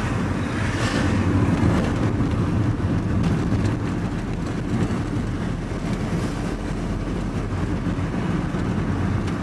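Steady engine and road noise of a vehicle driving along, heard from inside the cab: a continuous low rumble of engine and tyres.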